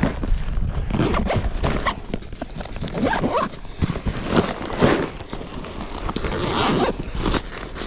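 Zipper of a bag being worked, among irregular rustling and handling noises of gear being rummaged through.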